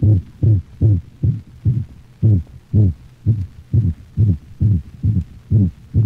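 Dog's heart heard through a stethoscope with a systolic whoop (seagull murmur), a variation of the holosystolic murmur of atrioventricular valve insufficiency. Each beat carries a high, musical tone, at a little over two beats a second.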